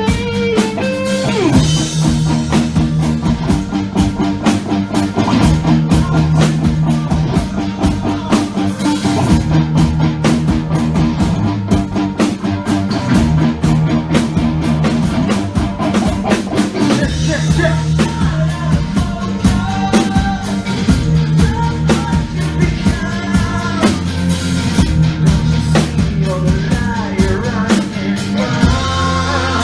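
A rock band playing a song live, with a drum kit and electric guitars played along to backing tracks, and some singing.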